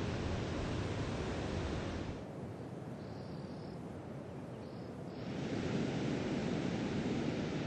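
Steady rushing noise of surf and wind on a shoreline. It drops to a softer, duller hiss for about three seconds in the middle, where two faint, brief high notes can be picked out.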